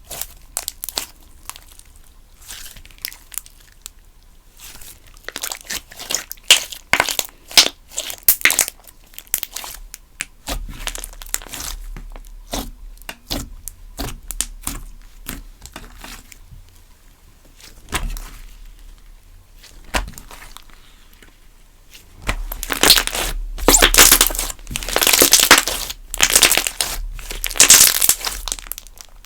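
Slime being squished, stretched and poked by hand: sticky crackling with small pops and clicks, sparse in the middle and much denser and louder for the last several seconds.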